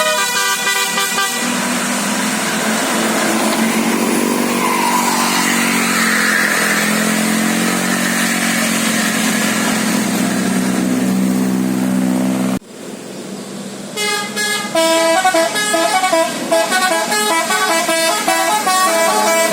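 Basuri musical air horns on buses ('telolet') playing a stepped melody of quick changing notes. In between comes a long stretch of denser vehicle noise, which cuts off sharply. The horn melody then starts again.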